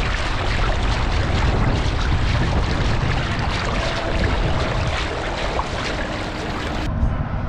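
Wind buffeting the camera microphone over the rush of water along the hull of a fishing kayak moving across choppy open water: a loud, steady noise that changes abruptly near the end.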